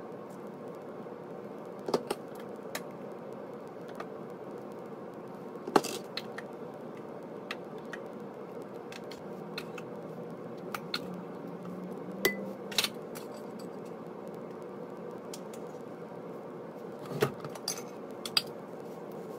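A measuring cup knocking and scraping against a slow cooker's crock and the serving bowls as thick tomato sauce is ladled out, in scattered sharp clinks, the loudest about six seconds in, over a steady low hum.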